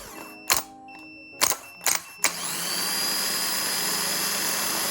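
Car starter motor being jumped by hand: several sharp clicks as the contact is made and broken. Then, a little over two seconds in, it spins up with a rising whine and keeps running steadily.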